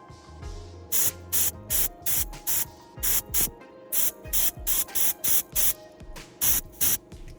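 Short hissing spray bursts, about fifteen in quick irregular succession, roughly two a second, over background music.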